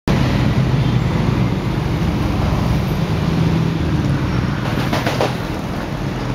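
Steady roadside traffic noise, a low rumble of passing vehicles including motorbikes, starting abruptly at the cut. A few short knocks come about five seconds in.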